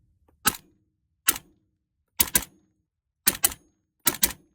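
Suppressed .308 battle rifle with a 13-inch barrel and a CAT ODB flow-through suppressor firing: two single shots, then three quick pairs of sharp reports with short tails.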